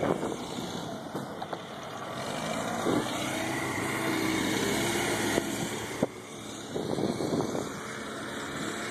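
Motor vehicle engine running steadily, with a few short knocks and clatters.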